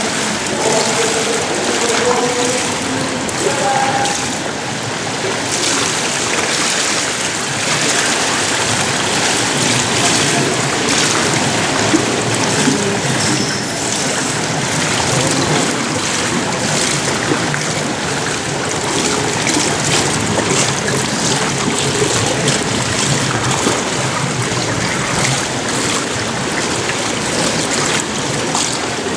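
Indoor swimming pool ambience: a steady wash of splashing and lapping water, with scattered small splashes. Faint voices can be heard in the first few seconds.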